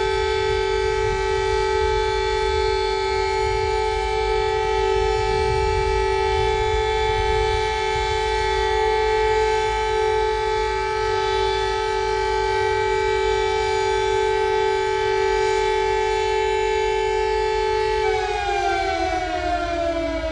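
Civil-defense-style siren sounding a steady, unchanging alert tone over a low rumble. Near the end its pitch starts to fall as it winds down.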